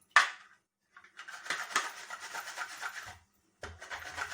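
Onion being sliced on a double-bladed hand mandoline slicer that cuts on both the forward and back stroke: quick, even rasping strokes of the onion across the blades, starting after a sharp knock, pausing briefly and starting again near the end.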